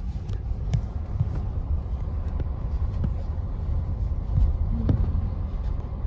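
Car driving along, heard from inside the cabin: a steady low rumble of road and wind noise, with a few faint light knocks.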